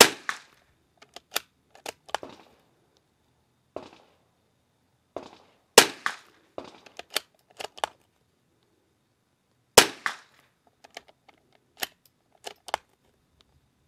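Three shots from a .22 LR rifle firing Aquila .22 LR rounds, one right at the start, one about six seconds in and one about ten seconds in. Quieter sharp clicks and cracks come between the shots.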